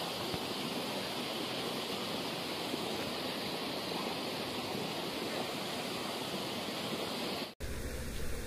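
Steady rush of water flowing through a concrete-lined canal past a bridge pier. It cuts off abruptly near the end, and a low rumble of wind on the microphone follows.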